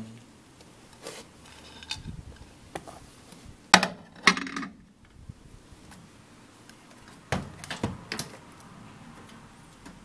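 A plate of fries is set down with two sharp clinks inside a vintage 1970s Hotpoint microwave oven, a little under four seconds in. A few seconds later the oven door is shut with a cluster of clunks, and its control dial is handled near the end.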